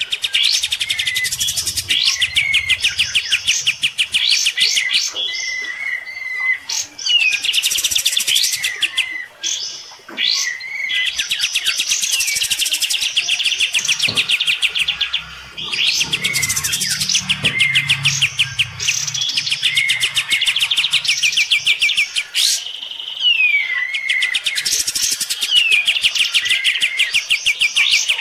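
Kapas tembak songbird singing loudly in fast, rattling trilled phrases of one to three seconds, broken by short pauses and sharp down-slurred whistle notes. It is aggressive challenge song, sung as a duel against a neighbouring kapas tembak.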